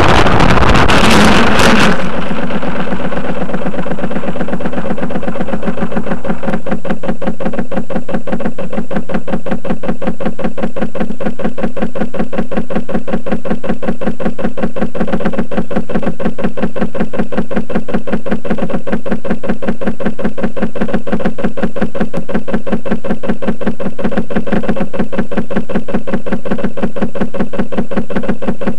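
Onboard audio of a depron RC model plane: rushing air and motor noise as it skims low, then about two seconds in an abrupt change as it crashes. After that, a steady, loud buzz with a fast, even rattle while the plane lies still.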